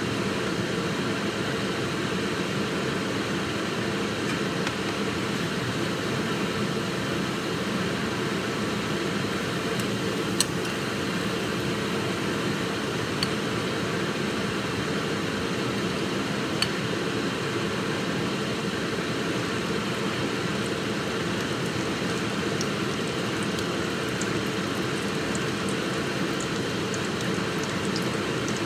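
Steady ventilation noise, with three faint clicks of a spatula against a mixing bowl about a third and half of the way through.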